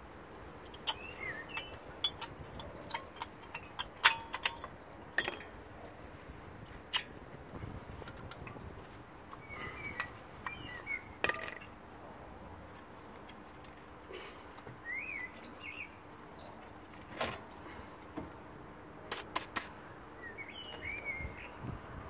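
Scattered sharp metallic clicks and clinks as worn front brake pads and their wear-sensor clip are worked out of the caliper by hand.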